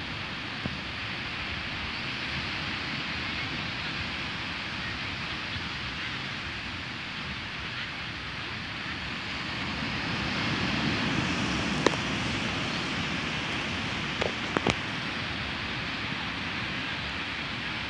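Small sea waves breaking and washing up a sandy beach: a steady rush of surf that swells about ten seconds in. A few sharp clicks come near the end.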